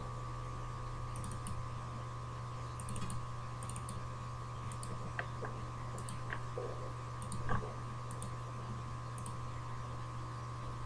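Scattered faint clicks of a computer mouse, some in quick pairs, over a steady low hum.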